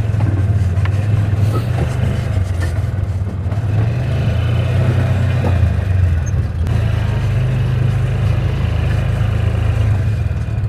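Engine of a small farm vehicle running steadily at an even speed as it tows a loaded wagon of wood chips, with a low hum and some light rattle.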